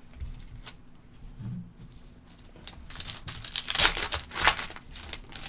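A trading-card pack's wrapper being torn open and crinkled, with a few faint clicks first and then a dense run of crackling from about three seconds in.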